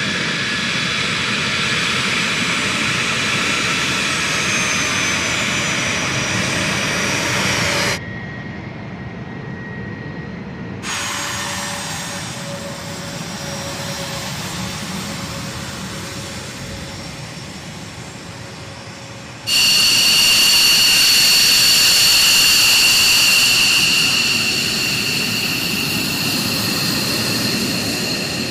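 Taxiing military jets, heard in several edited shots. First an A-10 Thunderbolt II's TF34 turbofans run with a steady whine. After cuts it drops quieter for a stretch, then about two-thirds through it turns to the louder, shriller whine of an F-15J Eagle's twin jet engines.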